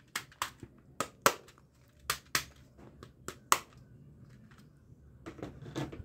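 Sharp plastic clicks from a yellow-and-blue toy foam-dart shotgun being handled, coming in pairs about a third of a second apart, about four pairs, with a few fainter clicks near the end.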